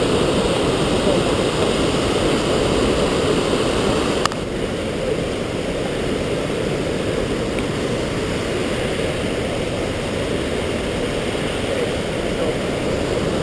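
Steady roar of rushing water from a waterfall. About four seconds in there is a click and the roar becomes a little quieter.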